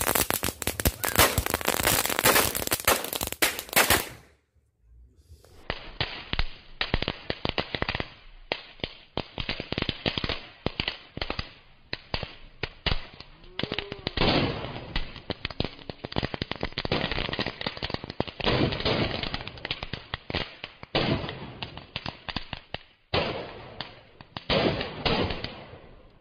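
A fan-shaped bundle of small firecracker tubes going off in a dense, rapid string of sharp cracks and pops. It stops about four seconds in, resumes a second later as continuous rapid crackling, and breaks off briefly once more near the end.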